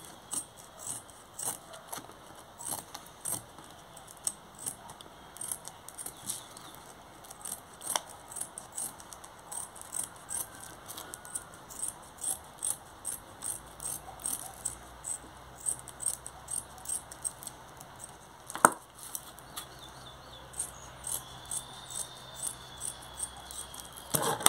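Scissors snipping through hook-and-loop fabric, trimming the excess Velcro around the edge of an orbital sander's pad: a steady run of short, crisp snips, about two a second, with one sharper click about two-thirds of the way through.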